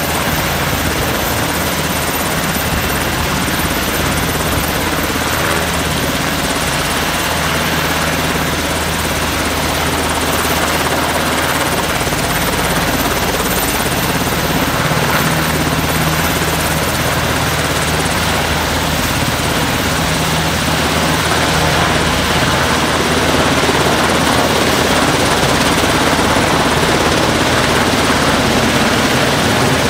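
Sikorsky Black Hawk helicopter hovering, its main rotor and twin turbines running steadily, getting slightly louder in the second half. It is holding low over water while its underslung firefighting bucket fills.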